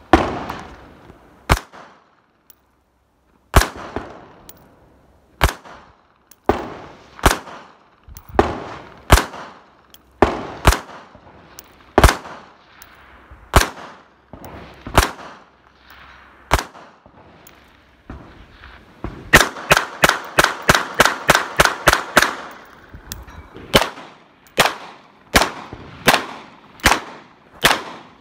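Handgun shots: single shots about every one and a half to two seconds, then a fast string of about a dozen shots some twenty seconds in, then steady single shots again near the end.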